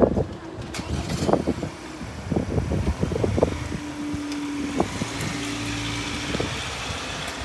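Level crossing barriers rising: the barrier machinery gives a steady hum for about three seconds, with a brief break partway through. Before it come irregular low rumbles and knocks, like wind buffeting the microphone.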